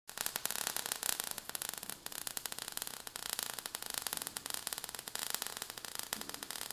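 Crackling, hissing sound effect of falling sparks: a quiet, fast run of small crackles over a steady hiss.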